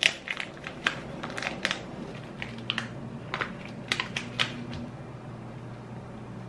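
Foil-paper butter wrapper crinkling and a knife clicking as a block of butter is unwrapped and sliced, a rapid scatter of sharp crackles and taps that thin out after about four and a half seconds. A faint low hum runs underneath.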